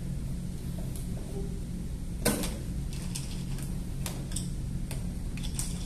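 Short plastic clicks and taps from a toddler handling a plastic playhouse toy's parts: one sharper click about two seconds in, then several lighter ticks, over a steady low hum.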